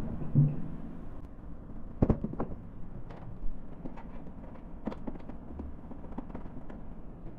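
Sheet-metal knocks and clicks as a steel outlet box is handled and fitted onto a thresher's grain outlet, with a low thud near the start and a sharper knock about two seconds in.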